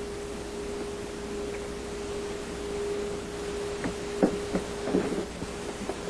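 A steady hum, then a quick cluster of small clicks and knocks about four to five seconds in as the dishwasher's door panel is handled and lifted.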